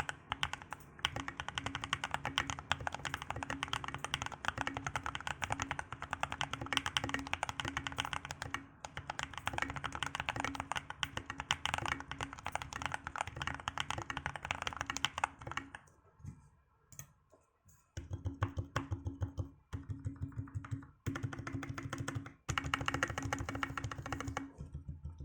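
Fast, continuous typing on a Skyloong SK61 mechanical keyboard with lubed Holy Gateron Skies tactile switches, foam-dampened, with OEM-profile keycaps. About two-thirds of the way through the typing thins to a few single keystrokes, then picks up again with short pauses.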